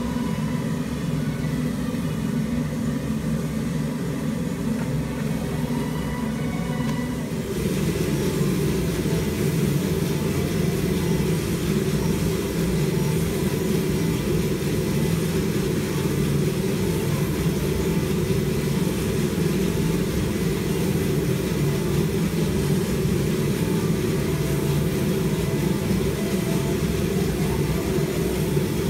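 Giesen W15 coffee roaster's cooling tray running: the fan and rotating stirring arms churning just-roasted beans to cool them make a steady whir and rustle. About seven seconds in it becomes a little louder and hissier.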